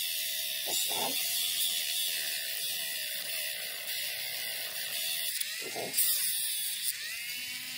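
Dremel rotary tool with a small cut-off wheel cutting a thin strip of handle-scale material: a steady high whine whose pitch wavers as the wheel bites. The footage is sped up, so the motor sounds faster than it actually runs.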